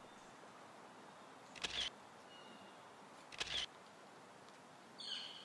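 Camera shutter clicks, twice, about two seconds apart, over faint hiss. A brief, higher sound of a different kind comes near the end.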